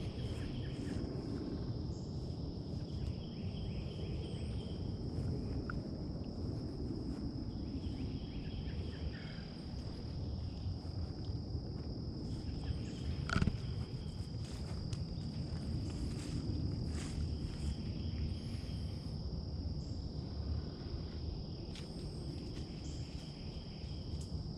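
Summer insects droning with a continuous high, steady note, joined every few seconds by short buzzy calls, over a low rumble. One sharp snap sounds about halfway through.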